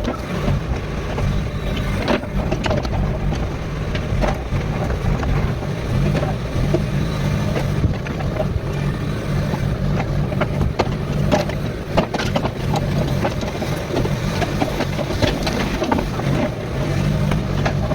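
JCB 55Z-1 mini excavator's diesel engine running steadily under working load, with frequent short knocks and scrapes as it digs and levels soil.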